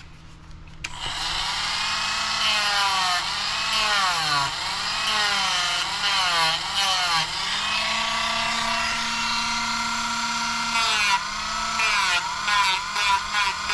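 Dremel rotary tool switching on about a second in and running with a high whine. Its pitch dips and recovers again and again as the spinning bit bears on a plastic RC buggy suspension arm, deburring it.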